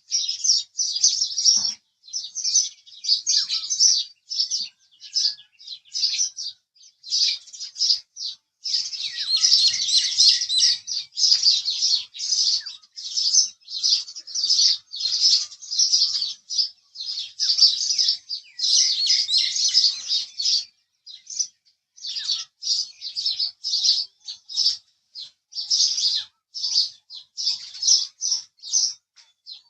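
House sparrows chirping: a steady run of short, rapidly repeated chirps with brief pauses, crowding together thickest about a third of the way in and again about two-thirds in.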